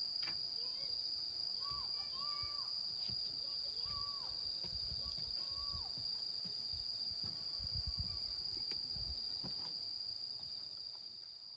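Steady high-pitched insect chorus, typical of crickets, continuing unbroken, with a few short tones in the first half and soft low bumps; it fades out near the end.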